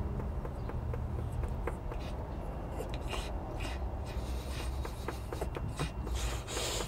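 Chihuahua panting, over a low steady rumble with scattered faint clicks.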